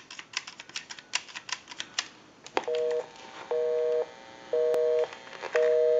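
Buttons on a Western Electric Trimline touch-tone handset clicking rapidly as a number is dialled. Then a telephone busy signal: a two-tone beep, half a second on and half a second off, repeating about once a second. It means the line being called is engaged.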